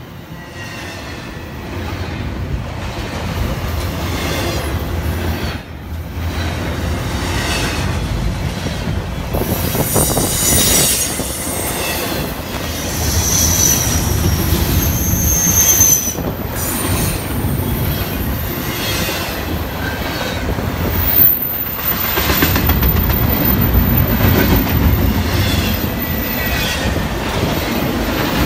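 BNSF double-stack intermodal freight train rolling past at close range: a steady rumble of steel wheels on rail with repeated clicking, growing louder in the first couple of seconds. High-pitched wheel squeal rises out of it around the middle, and a thin, very high whine runs through the last part.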